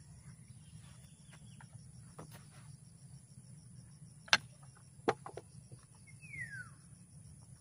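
Quiet rural ambience with a steady faint insect buzz, two sharp clicks about four and five seconds in, and a single short falling bird call near the end.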